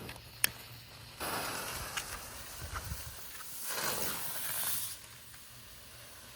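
A sharp click, then a firework fuse hissing and sputtering for about four seconds, swelling just before it stops.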